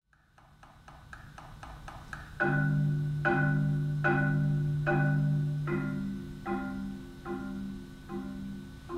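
Solo marimba played with four mallets. It opens with quick soft repeated notes, about four a second, that swell in volume. About two and a half seconds in, full low ringing chords take over, struck evenly about every 0.8 seconds and gradually getting softer.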